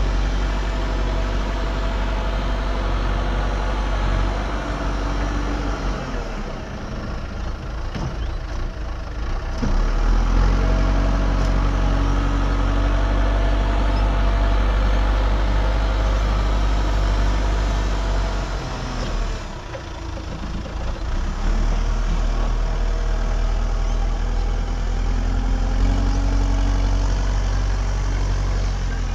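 Diesel engine of heavy earthmoving machinery running steadily under varying load, with a deep rumble; the revs dip twice, about six and twenty seconds in, and build back up each time.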